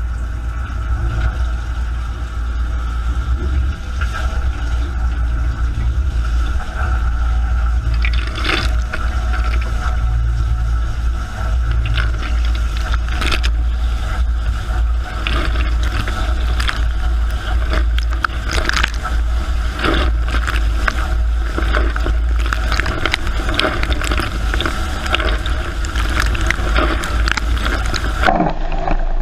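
Dishwasher running, heard from inside the tub: a steady low hum from the wash pump under the irregular spattering and splashing of water jets against the racks and walls. The hum eases off near the end.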